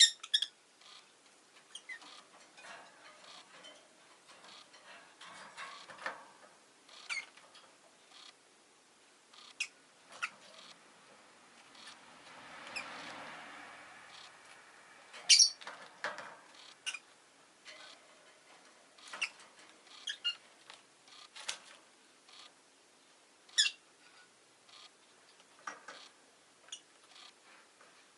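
Rosy-faced lovebird giving short, sharp, high chirps at irregular intervals, the loudest about halfway through. A passing vehicle swells and fades softly just before the loudest chirp.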